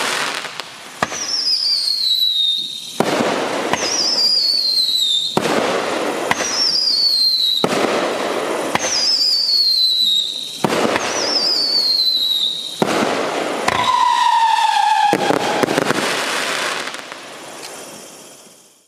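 Magnus 'Midnight Howling' fireworks cake firing a volley of whistling shots. About every two and a half seconds a whistle falls in pitch, followed by a noisy burst lasting over a second; the last whistle, near the end, is lower. The sound then fades out.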